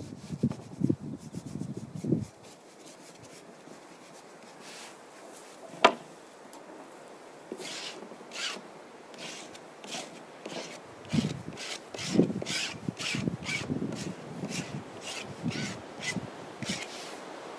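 A hand rubbing acrylic paint across a canvas on an easel: short scratchy strokes about twice a second in the second half, with low bumps at the start and one sharp click about six seconds in.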